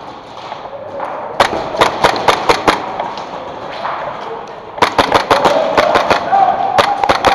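Airsoft gunfire: sharp cracks of shots in quick strings, about six in just over a second starting about a second in, then a denser run from about five seconds in.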